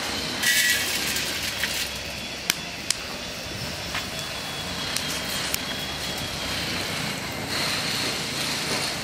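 Whole coriander seeds, chana dal and urad dal tipped into hot sesame oil in an iron kadai, hissing loudly as they go in about half a second in, then settling to a steady sizzle with a few sharp pops.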